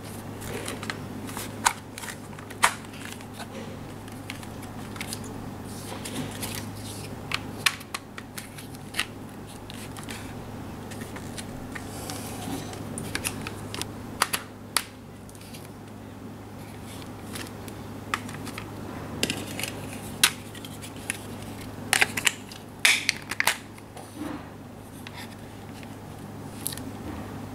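Hard plastic parts of a toy airliner being handled and pushed together: scattered sharp clicks, taps and rattles, over a steady low hum.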